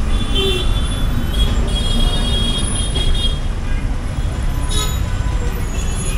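Busy street traffic around a slow-moving motorcycle: a steady low rumble, with short high-pitched horn toots coming and going several times.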